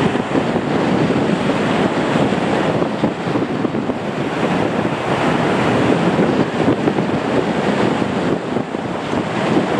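Strong wind buffeting the microphone, mixed with the roar of a Boeing 737-800's CFM56 jet engines at takeoff power as the airliner lifts off and climbs.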